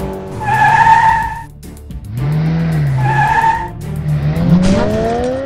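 Cartoon race-car sound effects: two loud tyre screeches, each about a second long, over a low engine note that dips and swells, then the engine revving up with a rising pitch near the end. Background music plays underneath.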